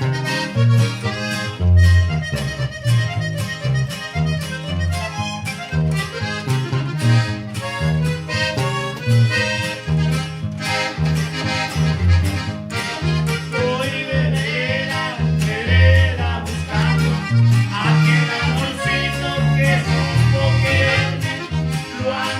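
Norteño group playing live: an accordion carries the melody over a steady rhythmic bass line and strummed guitar.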